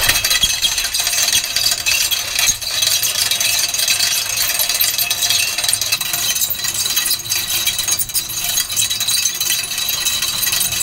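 Hand-cranked Walters Fencing wire winder reeling in rusty barbed wire, a steady run of rattling and clicking as the wire feeds onto the steel reel.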